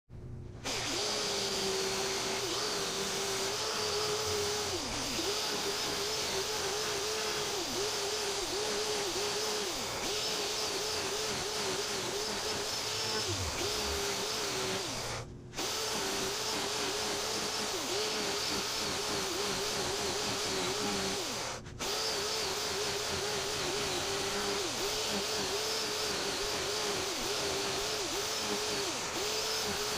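Chainsaw running at high revs while carving wood, its pitch dipping briefly again and again as the chain bites and the engine loads up. The sound breaks off for a moment twice, about fifteen and twenty-one seconds in.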